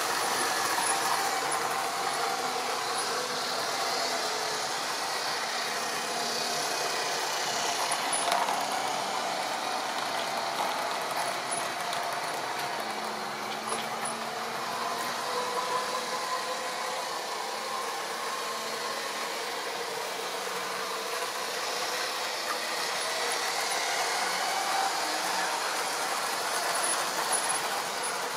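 Model railway train running on sectional track: a steady electric motor whine that drifts slowly in pitch, with wheels rattling along the rails.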